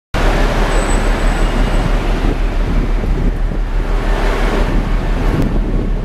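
Heavy ocean surf breaking, with strong wind buffeting the microphone in a steady low rumble.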